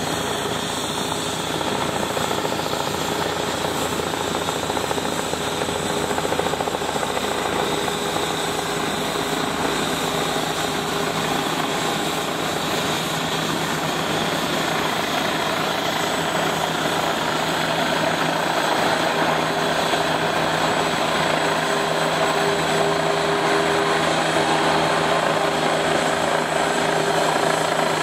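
Air ambulance helicopter flying low overhead as it comes in to land, its rotor and engine making a steady noise that grows a little louder in the second half.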